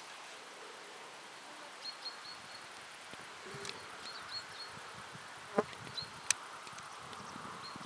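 Outdoor insect buzzing with short, high chirps now and then, while faint hoofbeats of galloping horses on a stubble field come in during the second half. Two sharp clicks sound a little after the middle.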